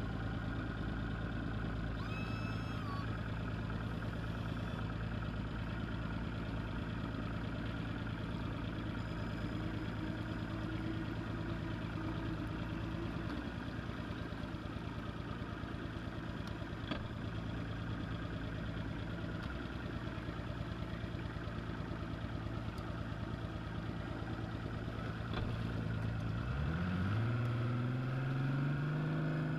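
A bass boat's main outboard motor running at low, idle-like speed with a steady engine note. Near the end its pitch rises as the throttle is opened to drive the boat up onto the trailer.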